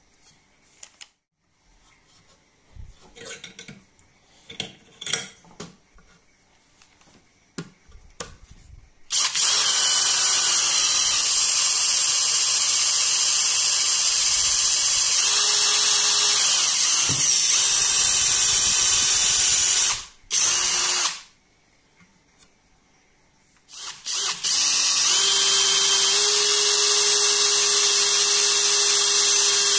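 Faint handling clicks and taps, then about nine seconds in a cordless drill starts driving a thin carbon-steel wood bit into a board. It stops briefly around twenty seconds in, then starts again and runs on with a steady whine. The bit is dull, so the drill has to be pushed hard to cut.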